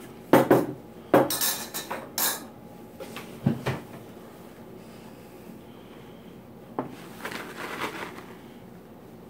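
A metal spoon clinking and scraping against glass baking dishes while spreading lasagna sauce: a cluster of sharp knocks and clatters in the first few seconds, then a few softer ones near the end.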